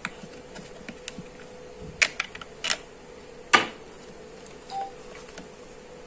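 Plastic clicks and knocks from handling an action camera in its clear waterproof case while it is worked loose from its mount in the box tray; a sharp knock about three and a half seconds in is the loudest. A faint steady hum runs underneath.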